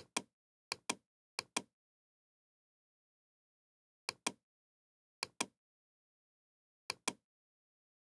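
Computer mouse clicked six times, each a quick press-and-release double click, as line points are placed in a CAD sketch. There are three in the first two seconds, a pause, then three more about a second apart.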